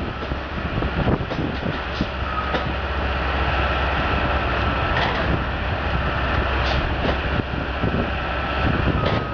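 Rail vehicle running on track: a steady rumble with repeated clanks and knocks, and a faint thin squeal of wheels or machinery through the middle.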